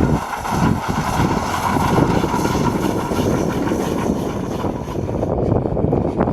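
Steam locomotive working hard, its exhaust beats and steam hiss running loud; the high hiss falls away about five seconds in.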